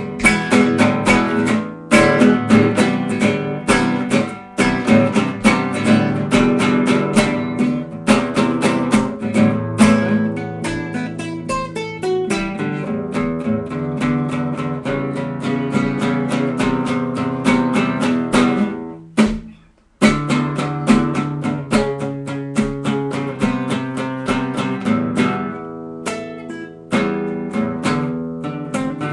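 Acoustic guitar strummed in a steady rhythm, an instrumental break with no singing. The playing stops for about half a second around two-thirds of the way through, then picks up again.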